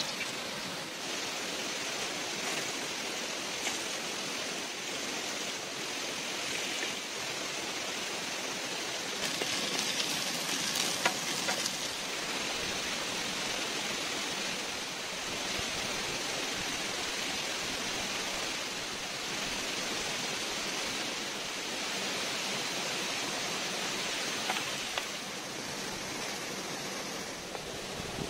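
Steady rushing of a stream, with a higher sizzling hiss over it for most of the stretch from potato cubes frying in olive oil in a metal pan over a wood fire.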